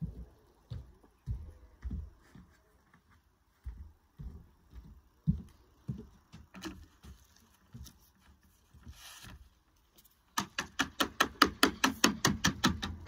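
Scattered soft knocks and handling noises as a lead capping panel is worked into place, then about ten seconds in a fast run of hammer blows, about six a second.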